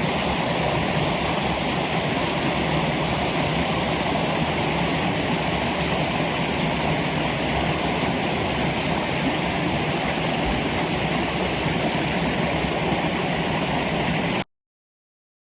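Waterfall and creek water rushing, a steady, even roar that cuts off abruptly near the end.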